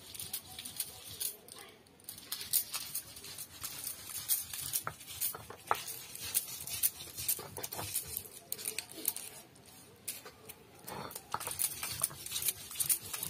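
Stone roller rocked and rubbed over a flat grinding stone (shil-nora), crushing chopped onion and garlic into paste: a steady run of irregular crunching and scraping clicks, pausing briefly a couple of times.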